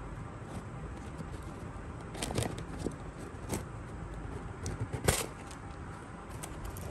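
Hands handling and opening a kraft cardboard box: a few short scrapes and light knocks of the cardboard, with the sharpest one about five seconds in as the fitted lid comes off.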